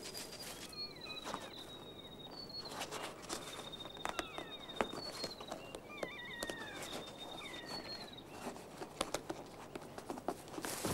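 Keas pecking and rummaging at a canvas camera bag: scattered light taps and rustles. Over them come thin, high bird chirps and short trills every second or so, with a few falling whistles.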